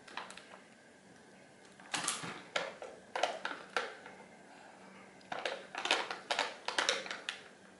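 Light, sharp clicks and clacks of small hard objects being handled on a tabletop, in irregular clusters about two seconds in and again from about five to seven seconds in.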